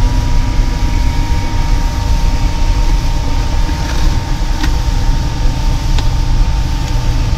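Outboard motor running at speed on a moving fishing boat, with wind and water rushing past the hull: a loud, steady rumble and rush with a thin steady whine over it. A couple of light clicks come about four and a half and six seconds in.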